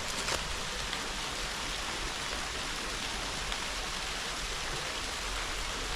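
Steady rush of creek water pouring over a waterfall.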